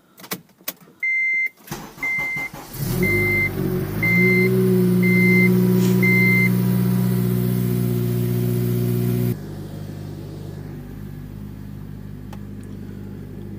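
Acura CSX being started: a few clicks, then a dashboard warning chime beeping six times while the starter cranks and the four-cylinder engine catches and settles into a steady idle. About nine seconds in the engine sound suddenly becomes quieter and keeps idling.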